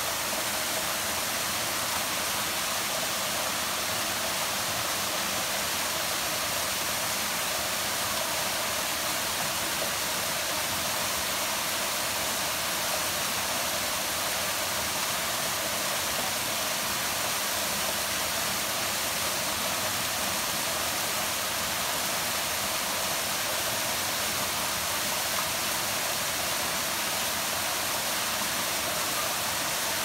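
Small waterfall pouring over a rock face into a pool: a steady rush of falling water.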